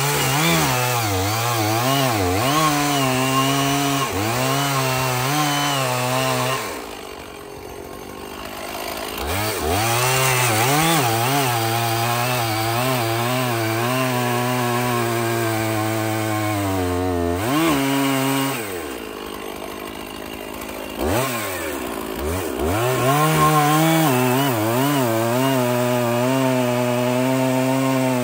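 Stihl two-stroke chainsaw with a 20-inch bar cutting through logs. The engine runs at high revs under load with its pitch wavering in the cut. It drops to idle about 7 seconds in and again about 19 seconds in, then revs back up into the wood each time.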